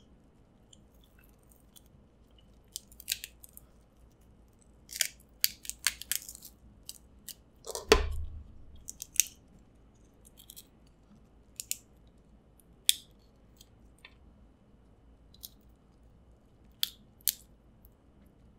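Snow crab shell cracking and snapping as meat is picked out by hand, close to the microphone: scattered sharp cracks and clicks, busiest about five to eight seconds in, with the loudest crack and a dull thump about eight seconds in.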